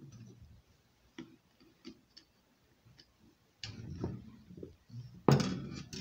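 Scattered light clicks and taps from a screwdriver and bicycle hub parts being handled during hub bearing work, with a louder knock near the end.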